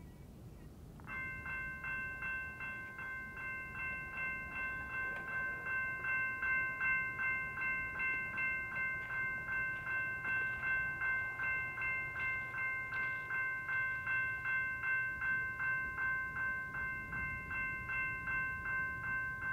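Railroad crossing warning bell starts ringing about a second in and keeps up a steady, even ding about twice a second, the crossing signal set off by an approaching freight train. A faint low rumble lies underneath.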